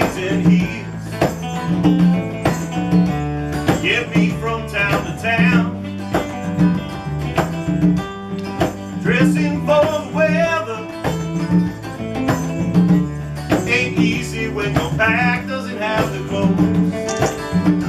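Live band playing a country-blues instrumental passage: strummed acoustic guitar keeps a steady rhythm while a lead line plays wavering melodic phrases over it.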